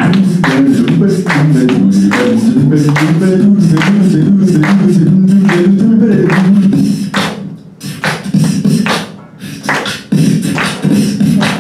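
A cappella group singing in chords over a beatboxer's vocal percussion keeping a steady beat. About seven seconds in the singing thins out, leaving mostly sparse beatbox hits, then the full group comes back in about ten seconds in.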